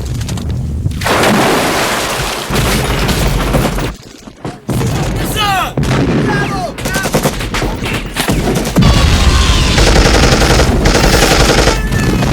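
Gunfire sound effects: dense shooting with machine-gun bursts, and voices mixed in. The shooting stops briefly about four seconds in, then turns into a louder stretch of rapid, evenly spaced automatic fire from about nine seconds in.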